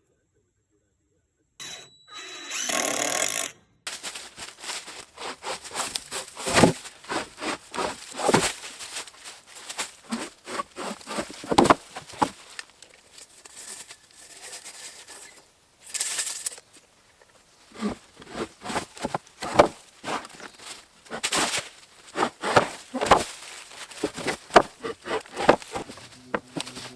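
Carpentry work: a long run of irregular wooden knocks and taps, tools and boards striking, at times several a second. A brief hiss comes near the middle.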